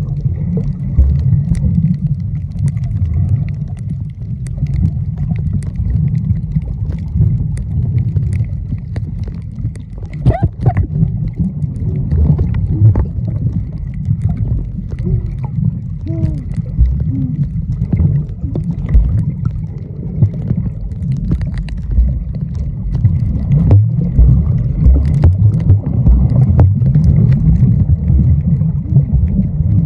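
Water rushing and sloshing against a camera held underwater, heard as a loud, muffled low rumble with scattered small clicks. A few short bubbling glides come about ten seconds in and again about sixteen seconds in.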